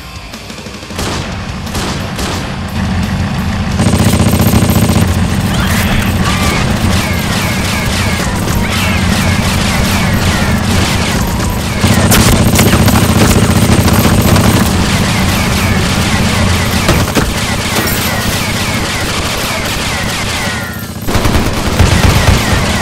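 Rapid automatic rifle fire, a near-continuous fusillade of overlapping shots. It gets louder about four seconds in, dips briefly near the end, then picks up again.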